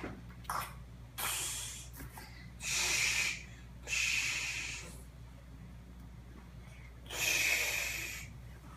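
A person's breathing: about five loud, airy puffs of breath, each about a second long, with a longer gap between the fourth and fifth.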